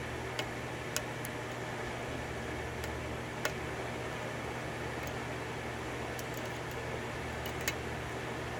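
A handful of sharp little metal ticks from a lock pick working the pin stack of a 6-pin DOM lock during single-pin picking, scattered over a steady background hum.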